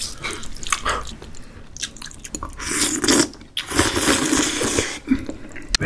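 Close-miked, wet slurping and chewing of fettuccine noodles in meat sauce. The slurping is loudest from about three to five seconds in.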